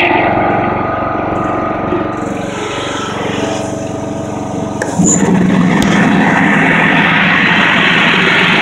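Zero-turn riding lawn mower engine running under way. About five seconds in it suddenly gets louder and rougher, with a broad rushing noise over the engine note.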